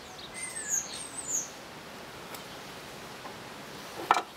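A songbird's high chirps, two or three short falling notes about a second in, over a faint steady outdoor background. A short light knock near the end.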